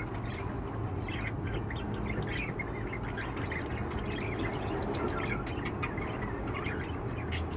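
Budgerigars chattering, with many quick high chirps all through, over a steady low background hum.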